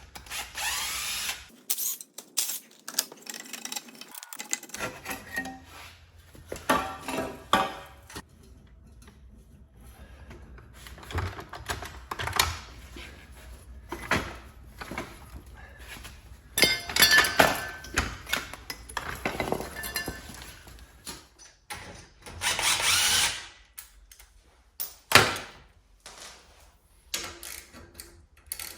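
Power tool running in short bursts, about a second each, to undo the motorcycle's exhaust fasteners, with knocks and clanks of metal parts and tools between the bursts.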